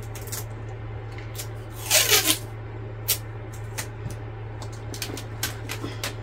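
Thin plastic sheet and holographic film crinkling and rustling as they are handled, in scattered sharp crackles with one longer rustle about two seconds in. A steady low hum runs underneath.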